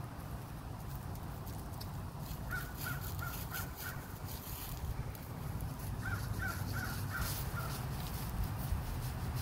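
American crow cawing in two runs of about five short, quick caws each: one run a couple of seconds in, the other about six seconds in. A steady low rumble runs underneath.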